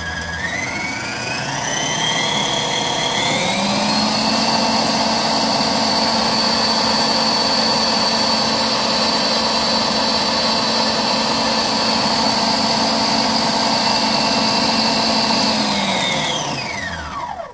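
Al Saif stand mixer's electric motor running, its whine stepping up in pitch over the first few seconds as the speed dial is turned up. It holds a steady high whine, then winds down and stops near the end.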